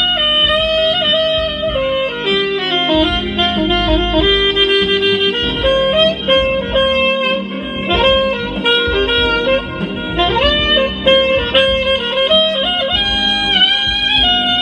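Straight soprano saxophone playing a melody of held notes that step up and down, with a rising glide about ten seconds in, over a backing track with bass.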